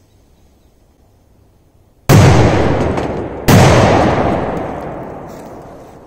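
Two Corsair 12 firecrackers exploding inside a washing machine, two sharp blasts about a second and a half apart, about two seconds in. Each is followed by a long fading echo.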